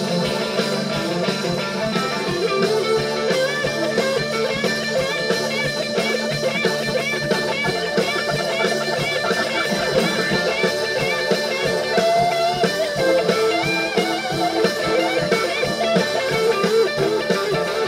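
Live blues band playing an instrumental passage: electric guitar lines with bent notes over sustained organ chords, bass and drums, with no singing.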